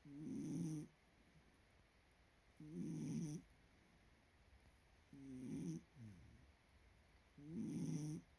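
Miniature dachshund snoring in its sleep: four snores, each just under a second long, about every two and a half seconds.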